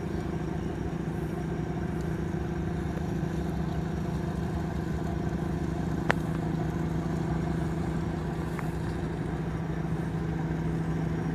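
Ferry's diesel engines running with a steady low drone, and a single sharp click about halfway through.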